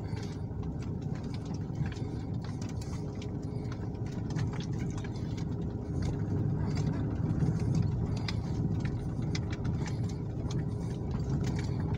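Car engine and road noise heard from inside a slow-moving car: a steady low hum that grows a little louder about six seconds in, with scattered light clicks over it.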